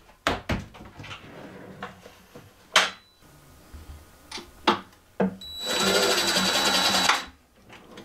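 Cordless DeWalt impact driver driving a screw into the wooden cabinet frame, hammering for about two seconds near the end, after a brief blip about three seconds in. Several short knocks and taps come before it.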